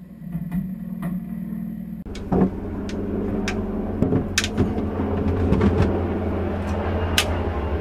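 A heavy Northstar AGM battery being set down and shifted into a plastic battery box: several sharp knocks and clunks over a steady low hum.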